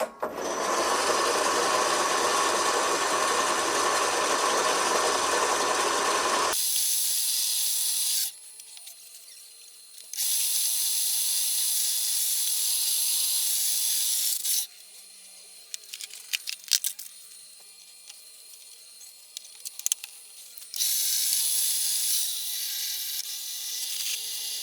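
Machine tool running and cutting aluminum in several separate stretches that start and stop abruptly. The first stretch is the loudest, with a steady tone in it. Scattered clicks fall in a quieter gap in the middle.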